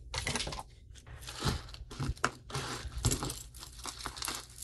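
Jewelry and its packaging being handled: irregular crinkling and rustling with light clicks and taps.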